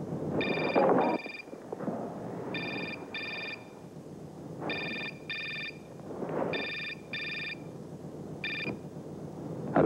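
Telephone ringing in a trilling double ring, one pair about every two seconds (five pairs, the last ring single), with softer noisy sounds underneath. A sharp click comes just before the end.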